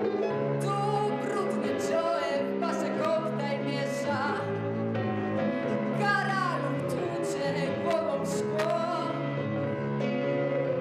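A young woman singing a slow song into a microphone, over an instrumental accompaniment of held chords.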